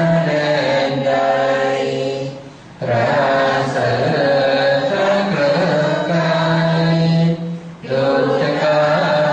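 Thai Buddhist lay men and women chanting together in sarabhanya style, a melodic Pali recitation in praise of the Phra Buddha Sihing image, with long held notes. The voices break off briefly twice, about two and a half seconds in and again about seven and a half seconds in.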